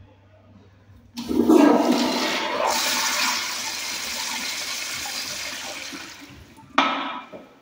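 Kohler Highcliff Ultra toilet flushing: a sudden loud rush of water about a second in that gradually eases off, then a short second surge of water near the end.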